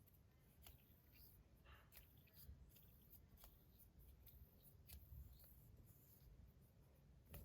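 Near silence, with a few faint light clicks and ticks from a small titanium fidget spinner being handled in the fingers.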